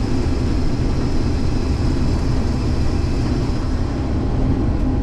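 Case IH 2388 combine harvester running steadily while cutting soybeans: a constant low drone with a faint steady high whine above it.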